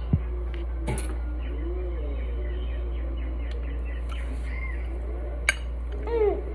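Two sharp clinks, like a fork or spoon knocking a plate, one just after the start and one near the end, over a steady low hum. A young child's small high-pitched vocal sounds come in softly, louder near the end.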